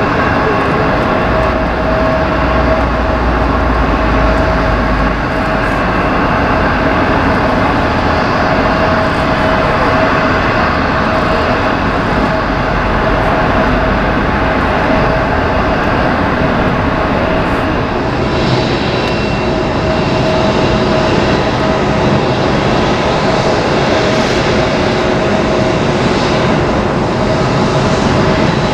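Airbus A380-861's four Engine Alliance GP7200 turbofans running at taxi power: a steady rushing hum with held whining tones. The high hiss drops away about two-thirds of the way through.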